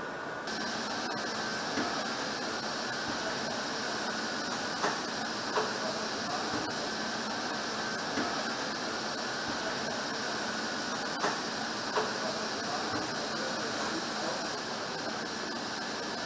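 Steady hiss of factory-floor background noise, with a few faint clicks scattered through. The noise steps up a little about half a second in.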